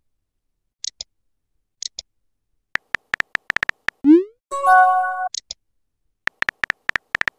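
Phone texting-app sound effects: single taps, then a run of quick keyboard-tap clicks as a message is typed. About four seconds in comes a short rising swoosh as the message is sent, then a brief electronic chime. Near the end another run of taps follows.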